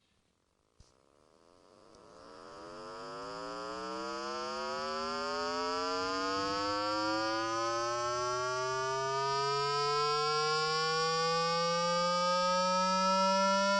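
Electronic water-eject tone, played to shake water out of a phone speaker. A low, buzzy tone fades in about a second in and slowly rises in pitch, growing louder over the first few seconds.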